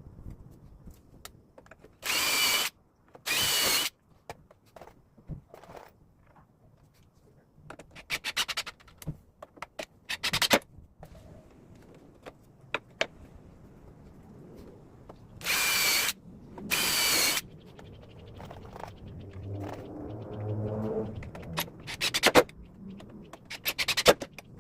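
Power drill running in short bursts of under a second each, two pairs of them, between scattered knocks and clicks of workshop handling.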